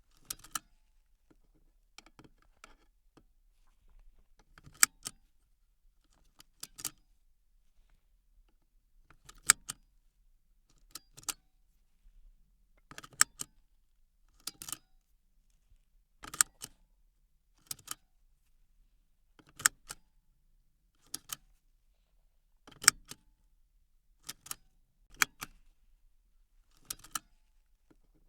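Car seat belt being buckled and unbuckled over and over: the metal tongue rattles and latches into the buckle with a sharp click. The clicks come every second or two, often in close pairs.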